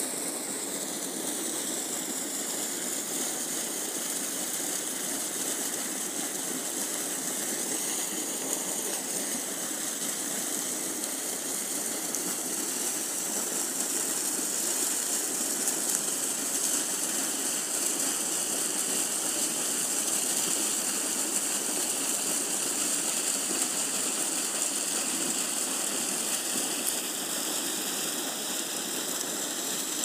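Stream water rushing and splashing steadily where it pours into a pool.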